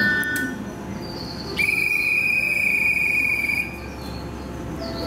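Platform departure chime cut off about half a second in as the switch on the pillar is let go, then one long, steady whistle blast of about two seconds signalling the train's departure.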